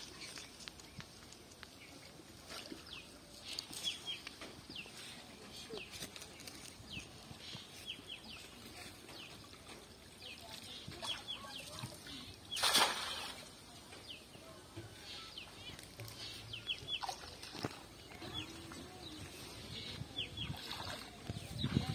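Small birds chirping in short calls, repeated in little groups of two to four, with a brief rushing burst about halfway through.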